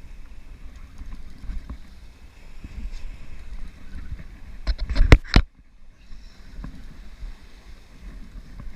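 Steady low outdoor rumble, like wind or water against the microphone, broken about five seconds in by a quick cluster of loud knocks, with the sound cutting out suddenly for about half a second right after.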